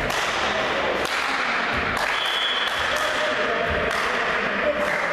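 Busy hubbub in a large sports hall, with a ball thudding on the floor about once a second. A short high whistle sounds about two seconds in.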